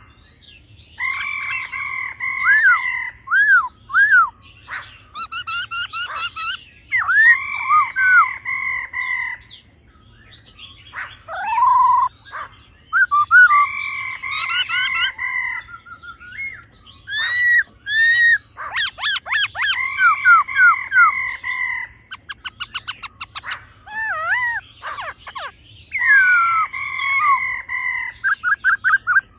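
Black-throated laughingthrush (khướu bạc má) singing loud whistled phrases: held two-note whistles alternate with fast runs of short repeated notes in the middle and near the end.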